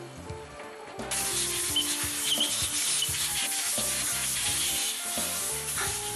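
Compressed air hissing as it blows the disassembled marine diesel fuel valve parts clean. The hiss starts suddenly about a second in and stays loud and steady over soft background music.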